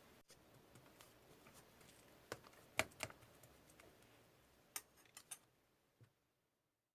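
Slime being mixed by hand, giving a few faint crisp clicks and pops: single ones and short clusters of two or three, and the sound stops about six seconds in.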